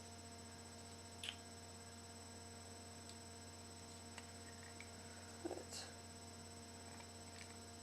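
Steady electrical mains hum in the recording, with a few faint, short clicks and rustles of small objects being handled.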